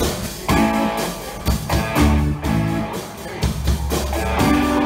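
Live band playing: electric guitar chords over drums.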